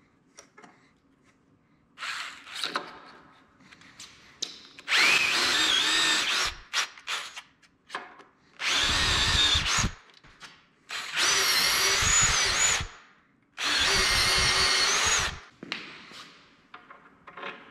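Cordless drill boring into ash wood, run in four bursts of about one and a half to two seconds each, with short pauses between them.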